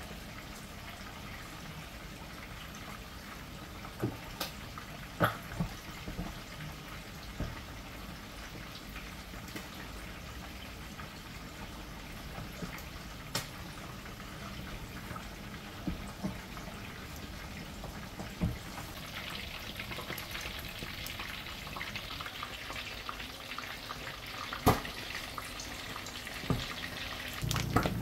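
Boiled garden eggs being peeled by hand in a dish of cold water: small, scattered splashes and drips of water over a steady low hum. From about two-thirds of the way through a brighter, steady hiss rises beneath them.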